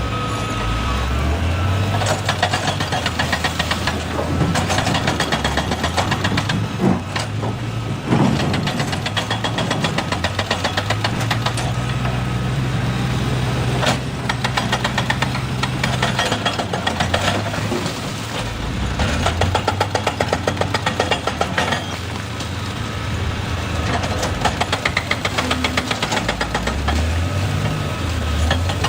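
Excavator's diesel engine running and revving up and down under load, with rapid clattering that comes in stretches and a few sharp knocks.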